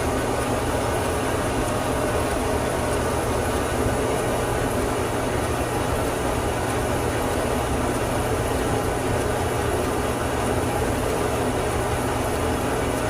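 Whirlpool electric dryer running, its drum turning and blower going with a steady, even rumble and low hum.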